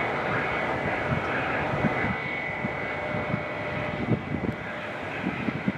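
Boeing 757-200 jet airliner on final approach: a steady jet whine with a high fan tone over a broad rush, with irregular low thuds underneath.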